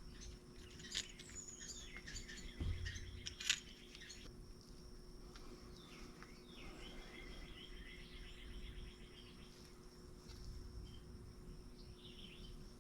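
Faint clicks and light knocks of small brake caliper parts being handled, with a sharp click about a second in and another near three and a half seconds, and a dull knock between them. A faint high chirping runs for a couple of seconds in the middle.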